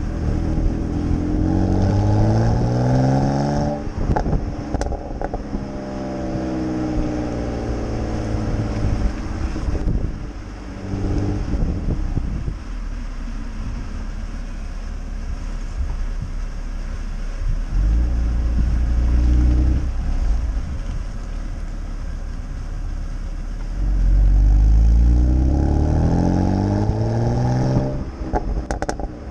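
BMW E92 325i's N52B25 2.5-litre inline-six through a BMW Performance rear silencer (ESD), revving up through the gears with a break at each shift and a steadier stretch in the middle. A few sharp pops come when the throttle closes, about four seconds in and again near the end.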